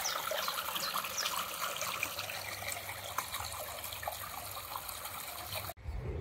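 Small waterfall in a stream, water trickling and splashing steadily over rocks; the sound cuts off suddenly near the end.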